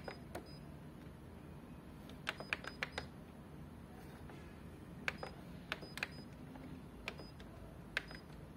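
Fuji Xerox DocuCentre-V 2060 copier control-panel keys being pressed in quick groups. Each press is a sharp click, several with a short high beep: a run of about five presses two seconds in, three or four more around five to six seconds, and single presses near the end.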